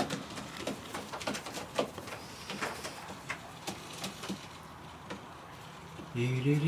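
Racing pigeons in a loft: scattered light clicks and taps, then a low cooing call with a rising pitch near the end.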